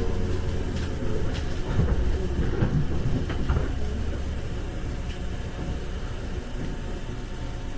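Interior running sound of a 415 series 1500-subseries electric train: a steady low rumble with a few sharp knocks from the wheels and car body in the first half. It grows somewhat quieter through the second half.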